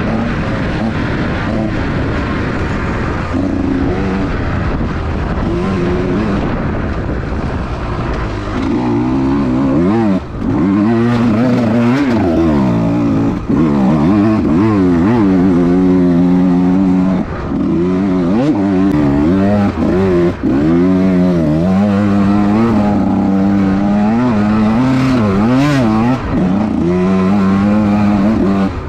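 Small-bore two-stroke enduro motorcycle engine revving hard while being raced, its pitch climbing and falling again and again with throttle and gear changes, with a few brief drops where the throttle is chopped.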